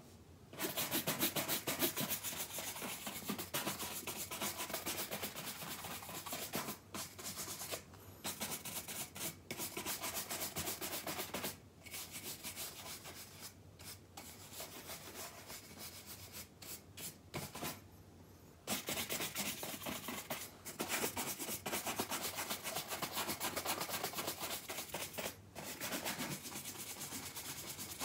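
Horsehair shoe brush swept rapidly back and forth over leather boots, a dry, bristly rubbing in fast strokes. The strokes come in runs broken by several short pauses.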